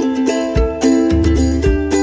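Background music with a steady beat and pitched notes.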